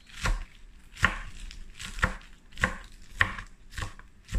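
A kitchen knife chopping fresh spinach on a cutting board, about seven sharp chops at an even, unhurried pace.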